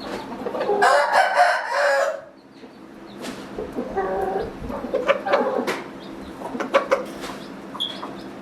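A rooster crows once, a long call starting about a second in, followed by several short clucking calls.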